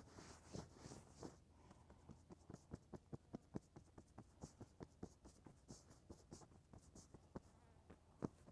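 Faint scalp massage: fingers working through hair and over the scalp, making soft quick clicks about three or four times a second with light scratchy rustling, and one louder click near the end.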